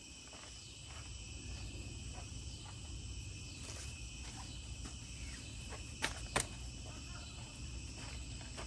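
Crickets chirping in a steady night chorus, with two sharp clicks about six seconds in.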